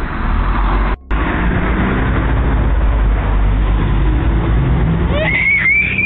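A young girl screaming near the end: one high, rising scream held for about a second. It sounds over a loud, steady noise with a low rumble on the doorbell camera's microphone, which cuts out for a moment about a second in.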